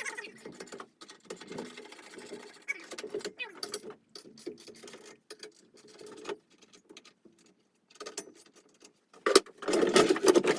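Loose metal saw chain clicking and rattling as it is handled during a chain change on a chainsaw, with a louder burst of rattling near the end.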